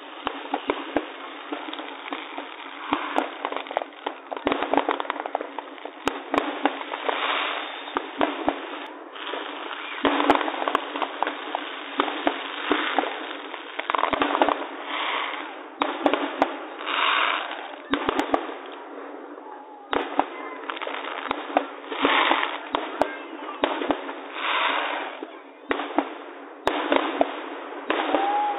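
Aerial fireworks going off: a steady run of sharp bangs with bursts of hissing crackle between them, heard thin, with no deep boom.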